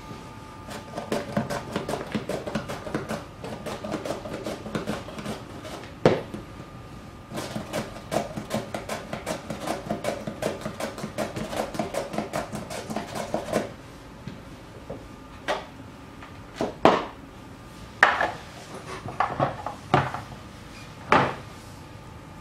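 A vegetable pushed back and forth over the blade of a plastic mandoline-style slicer in quick, repeated scraping strokes, several a second, in two runs with a pause between. Then about six separate sharp knocks.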